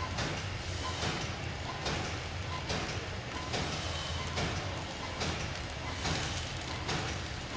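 Modern Manufacturing center seal pouch making machine running: a steady low hum with a sharp mechanical stroke repeating a little faster than once a second, the rhythm of its machine cycle.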